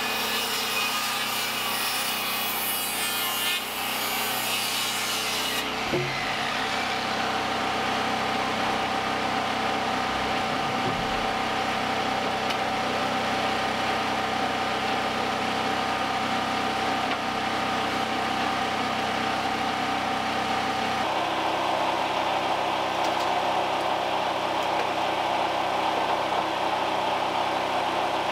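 Circular saw cutting through a board for about the first six seconds, then stopping sharply. After that a portable generator's engine runs steadily.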